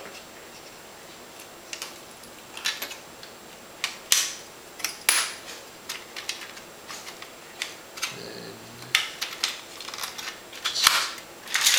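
Small sharp clicks and snaps of a Sony Vaio laptop's plastic casing and connectors as it is pried apart and handled, a scattered series of separate clicks, several louder near the end. A short low hum about eight seconds in.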